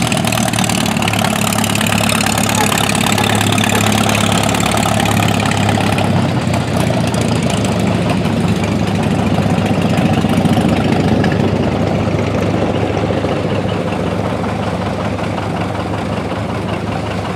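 An engine idling steadily close by, an even running sound with a low hum and no breaks.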